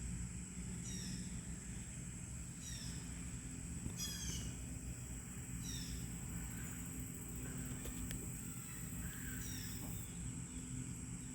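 Outdoor summer ambience: a steady high insect drone with a bird giving short falling chirps every few seconds, a quick run of them about four seconds in, over a low background rumble.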